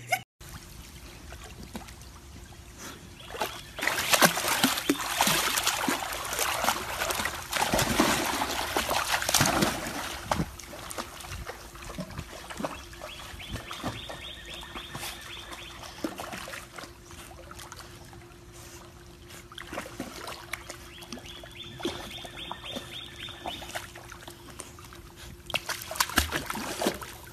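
Pool water splashing and trickling as golden retrievers swim through it, loudest for several seconds early on and then quieter, over a faint steady hum.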